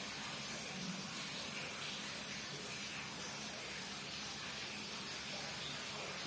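Steady, even hiss of background noise with no distinct sounds.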